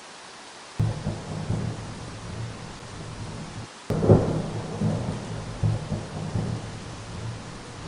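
Steady rain hiss with thunder over it: a low rumble breaks in about a second in, then a louder clap about four seconds in rolls on in uneven rumbles.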